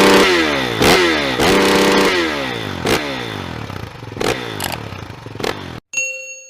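Dirt bike engine revving hard and dropping off several times, with sharp knocks in between. Near the end it cuts out and a short bell-like ding rings and fades.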